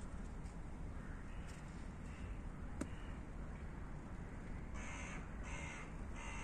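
A crow cawing: a few faint caws, then three louder harsh caws in quick succession about five seconds in.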